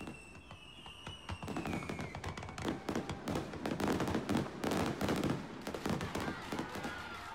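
A rapid, crackling barrage of distant blasts that builds to its densest and loudest about halfway through, then thins out. Over the first couple of seconds a high whistle slides slowly down in pitch.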